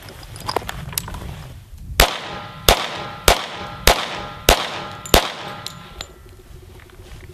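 Handgun fired six times in quick succession, evenly spaced about two-thirds of a second apart, shooting defensive duty ammunition.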